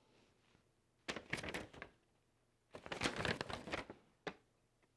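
Paper rustling in two bursts as an instruction sheet is handled, followed by a short click.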